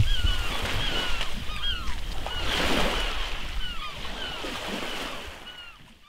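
Sea washing onto the shore, swelling briefly about halfway through, with many short repeated chirps, typical of birds, over it; the sound fades out near the end.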